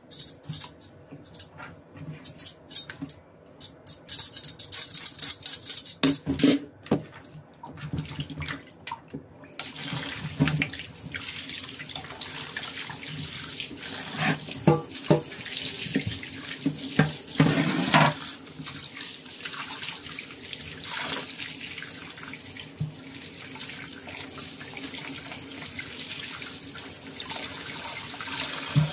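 A hand vegetable peeler scrapes and clicks for the first nine seconds or so. Then the kitchen tap comes on and water runs steadily into a stainless steel sink, with knocks as a cutting board and the vegetable are handled and rinsed under it.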